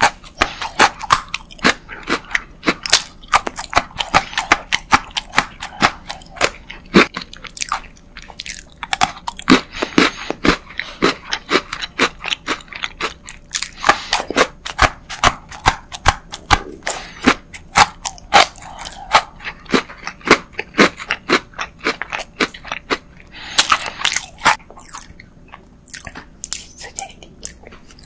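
Close-miked crisp crunching and chewing of strawberry Pocky biscuit sticks, with many sharp snaps a second in quick runs. The crunches thin out near the end.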